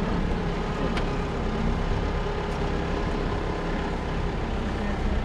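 Steady vehicle running noise: an even rumble with a faint constant engine hum and no change in pitch.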